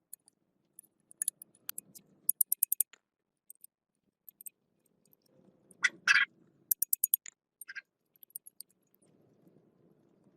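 Light clicks and quick runs of high ticks, with a short louder scrape about six seconds in: small hand tools or metal parts being handled.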